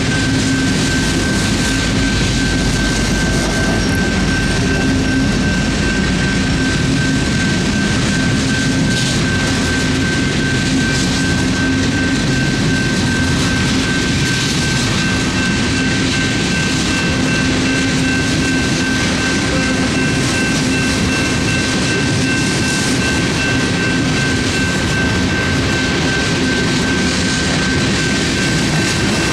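Freight train cars rolling steadily past a grade crossing, a continuous rumble of wheels on rail, with a steady high-pitched tone over it.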